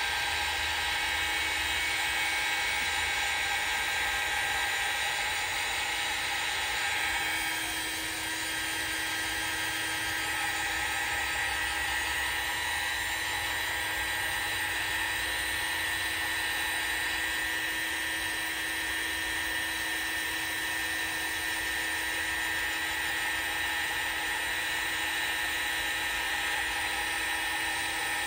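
Small handheld craft hot air gun running steadily, a high fan whine with several steady tones, used to dry watered-down acrylic paint. Its level dips slightly about eight seconds in.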